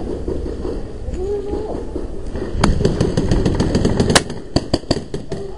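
Paintball markers firing: rapid sharp pops, several a second, starting about two and a half seconds in, with the loudest shot about four seconds in.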